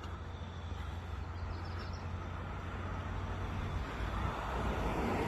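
Road traffic: a vehicle's engine and tyres drawing nearer, growing steadily louder towards the end.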